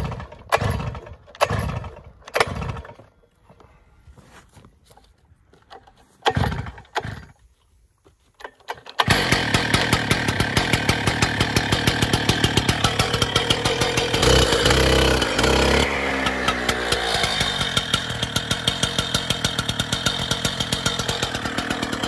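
Stihl TS 800 cut-off saw's two-stroke engine being pull-started: several short pulls with gaps between them, then it catches about nine seconds in and runs loud, its speed rising and falling after about fourteen seconds.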